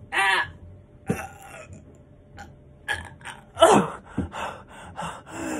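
A man grunting and gasping with effort while straining through a push-up. There is one voiced grunt right at the start, then a run of short strained grunts and breaths in the second half; the loudest of these, a falling groan, comes a little past halfway.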